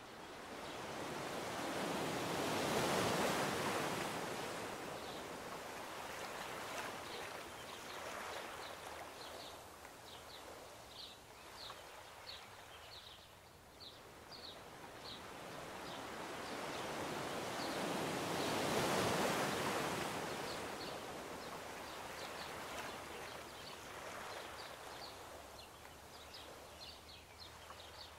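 Ocean surf washing ashore in two slow swells about sixteen seconds apart, with steady wave noise between them. Short high bird chirps repeat from about ten seconds in.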